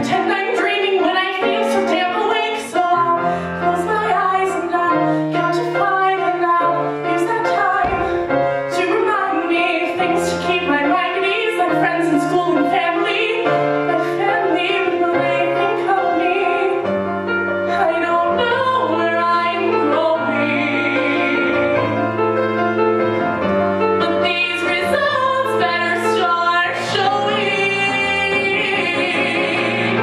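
A woman singing a solo pop song accompanied on grand piano, the piano's bass notes moving under her voice. Near the end she holds a long note with vibrato.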